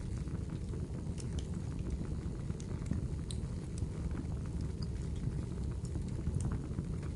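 Fire burning in a fireplace: a steady low rush of flames with scattered small crackles and pops.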